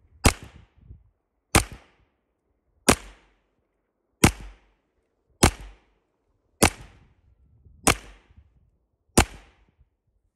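Non-lethal 10x28 self-defense pistol firing rubber-bullet rounds: eight single shots at an even pace, about 1.3 seconds apart.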